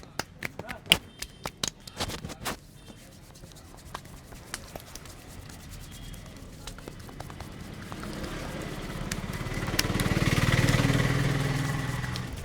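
Quick sharp massage taps for the first two seconds or so, then a passing motor vehicle that swells up over several seconds, is loudest near the end, and fades away.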